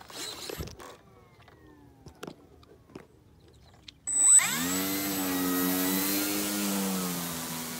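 Electric RC plane's motor and propeller whining faintly, in a slowly falling pitch. About four seconds in it turns suddenly loud as the plane comes close, a drone that swoops up in pitch and then holds, wavering.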